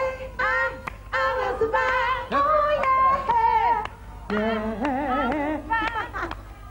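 A woman singing short phrases into a microphone, with held, wavering notes and music behind her.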